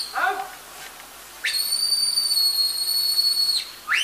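Shepherd's whistle commands to a working border collie: a long, steady, high whistle held for about two seconds, then a short rising whistle near the end. A brief lower call comes just after the start.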